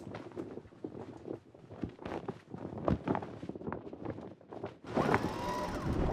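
Irregular clicks, knocks and rustling as the buckles and straps of an inflatable life jacket are fastened and someone moves about a boat cabin. About five seconds in, a steadier rushing sound takes over.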